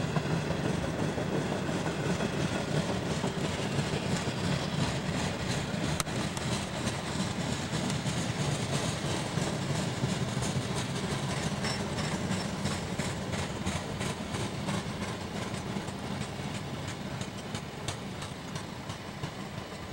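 Tank cars of a long freight train rolling past: a steady rumble of steel wheels on rail with occasional clicks, getting a little quieter in the second half.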